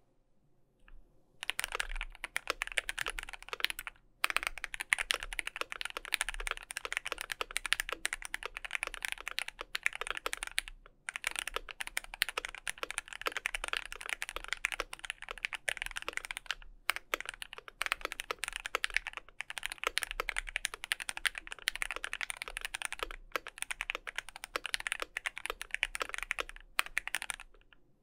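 Typing on a KBD67 V3 mechanical keyboard with lubed and filmed C³ Fierce Girls switches, a polycarbonate plate, PBT keycaps and a tape mod. The keystrokes are fast and continuous and start about a second and a half in, with short pauses a few times.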